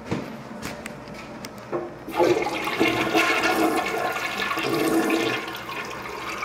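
Toilet flushing: a few light clicks, then about two seconds in a sudden loud rush of water swirling down the bowl that runs on steadily. It flushes normally, with no problem.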